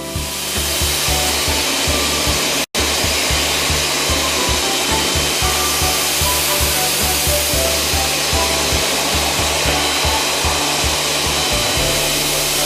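Air-conditioner cleaning equipment running with a loud, steady rushing hiss, like spray or blown air. It cuts out for an instant about three seconds in.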